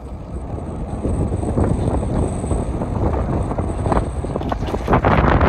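Wind buffeting the microphone while on the move outdoors: a loud rush of noise, heaviest in the low end, that builds up over the first second and gusts harder near the end.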